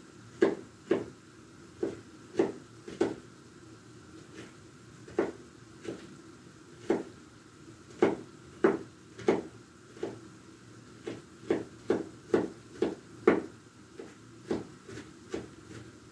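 Kitchen knife chopping onion on a wooden cutting board: sharp knocks of the blade striking the board at an uneven pace, some in quick runs and some a second or more apart.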